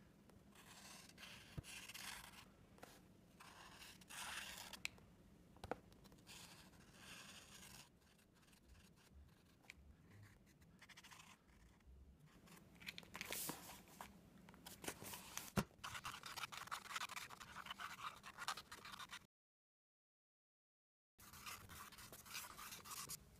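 Posca paint marker drawing on a kraft-paper sketchbook page: faint scratchy strokes in short runs with pauses. The sound cuts to total silence for about two seconds near the end, then faint strokes resume.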